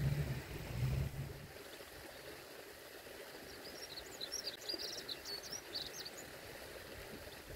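Faint outdoor background noise with a low rumble dying away over the first second or so, then a small bird chirping a quick series of short high notes for about two seconds in the middle.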